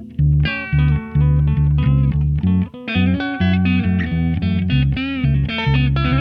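Background instrumental music: a guitar melody over a bass line.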